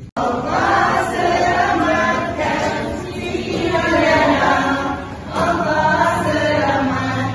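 A song sung by several voices together, choir-like, starting suddenly, with a brief dip about five seconds in.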